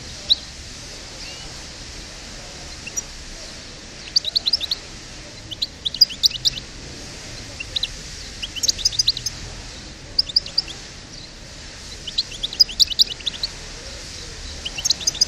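Goldfinch of the North African parva subspecies singing: clusters of quick, high twittering chirps, phrase after phrase with short pauses between.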